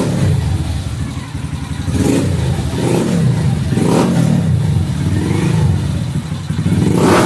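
Honda CG motorcycle's single-cylinder four-stroke engine running through an SFX aftermarket sport exhaust, just started and idling, with the throttle blipped about three times a couple of seconds in and revved again near the end.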